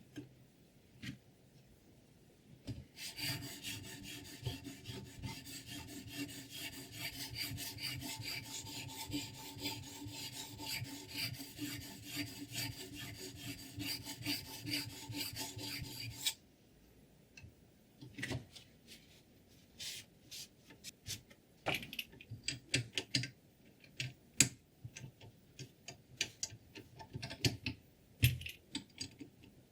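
Sharpening stone stroked quickly back and forth along a scissor blade, a steady rhythmic rasping rub. It stops about sixteen seconds in and is followed by scattered clicks and taps.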